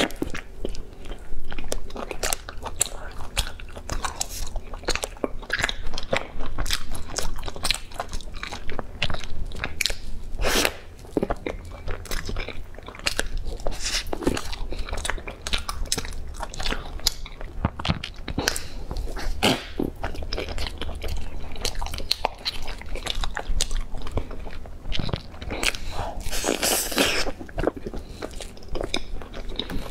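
A person biting and chewing a soft layered pastry close to the microphone: a dense run of short clicks and mouth sounds of chewing. Near the end there is one longer, louder noisy stretch.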